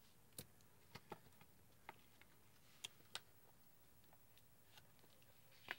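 Near silence with about half a dozen faint, short clicks scattered through it, from hands handling stickers and sticker sheets.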